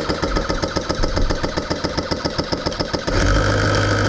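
Classic Army M133 electric airsoft microgun firing, a rapid, even mechanical pulsing of the motor-driven rotating barrels, which turns into a steadier, slightly louder hum about three seconds in.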